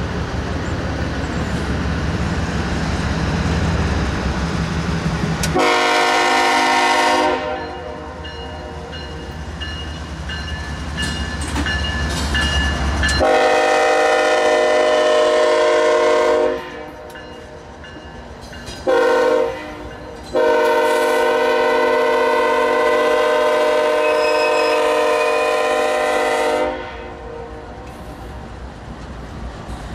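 Diesel locomotives rumbling past, then the lead locomotive's multi-chime air horn sounds four blasts: long, long, short, long, the grade-crossing signal. Under and between the blasts the train's cars roll by on the rails.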